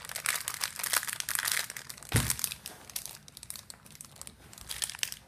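Wrapper of a Disney Infinity Power Disc blind pack crinkling and crackling as it is torn open by hand, with one louder thump about two seconds in.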